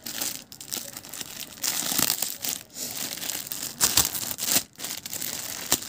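Thin clear plastic wrapping around a folded saree crinkling and rustling as it is handled and pulled open, in irregular crackles with short louder spurts.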